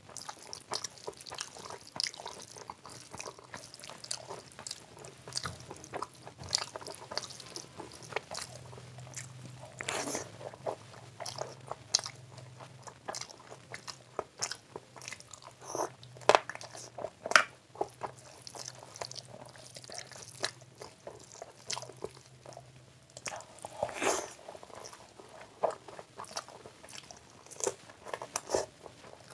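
Close-miked eating of rice and curry with the fingers: wet chewing with many short mouth clicks and lip smacks, and rice being mixed by hand on a steel plate.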